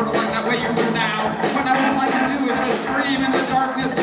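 A live rock band playing: electric guitar and drums, with cymbal strokes keeping a steady beat of about four a second, and a man singing over them.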